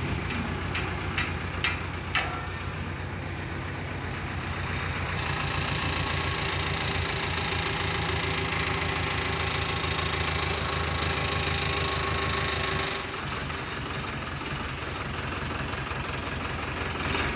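Diesel engine of a mobile crane running steadily, with a higher whine added from about five to thirteen seconds in while the crane is working. A few sharp metal clinks come in the first two seconds.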